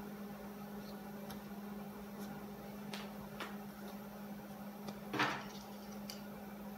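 Quiet handling sounds: a few faint clicks and one brief, louder rustle about five seconds in, over a steady low hum.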